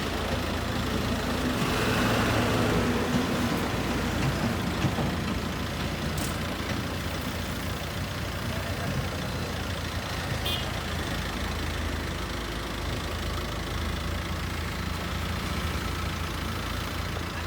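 Diesel engine of a Case backhoe loader running steadily, swelling louder for a couple of seconds about two seconds in.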